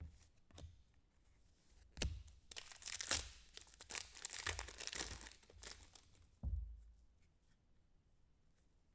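Trading-card pack wrappers crinkling and cards being handled, in a run of rustles and small clicks with a soft knock about six and a half seconds in.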